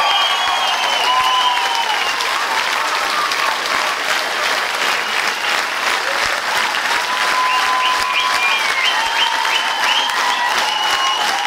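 Large concert audience applauding after the song ends, dense steady clapping with a few voices or whistles carrying above it.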